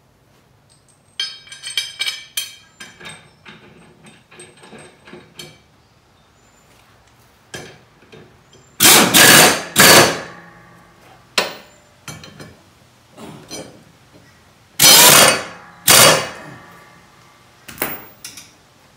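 Power impact wrench run on the mower's blade bolts in two pairs of loud bursts, each a long run followed by a short one. Before them, metal tools and parts clink.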